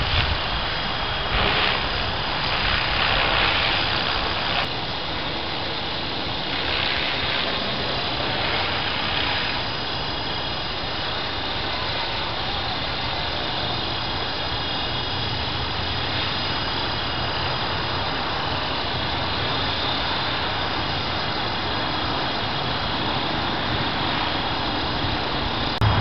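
Align T-Rex 450 electric RC helicopter hovering, a steady whir of rotor blades and motor mixed with the rush of strong wind, which swells in gusts during the first ten seconds or so.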